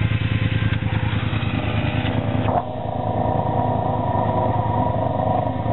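ATV engine running. About two and a half seconds in, the sound changes abruptly to a steadier, smoother engine note.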